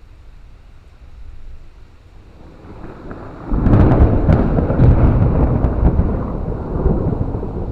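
Thunder: about halfway through, a sudden, very loud clap with several sharp cracks, then a heavy low rumble that slowly fades. It is the loudest thunder.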